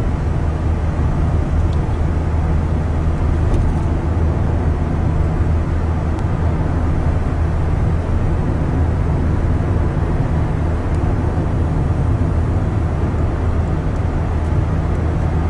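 Steady low drone of a CNG-fuelled Renault car's engine and road noise, heard from inside the cabin while cruising at highway speed.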